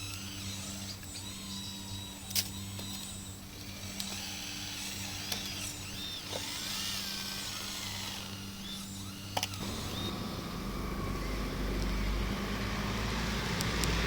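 Radio-controlled model construction machines working: a steady electric hum with small motor whines rising and falling in pitch, and two sharp clicks. About ten seconds in, a louder low rumbling sets in.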